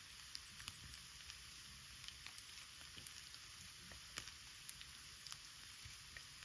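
Food sizzling faintly in a frying pan over a wood campfire: a steady hiss with scattered small pops and crackles.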